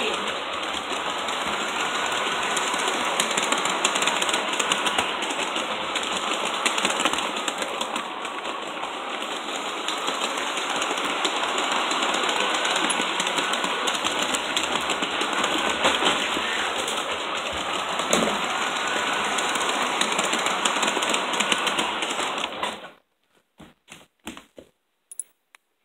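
LGB G-scale model train running on its track, heard from on board: a steady rolling rattle full of fine clicking from the wheels on the rail joints, with a faint wavering motor whine. Near the end it cuts off suddenly, leaving a few faint clicks.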